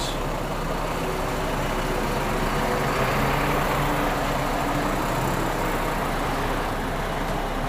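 Heavy goods vehicle's diesel engine running inside the cab as the lorry creeps slowly through a tight manoeuvre, its note swelling a little in the middle.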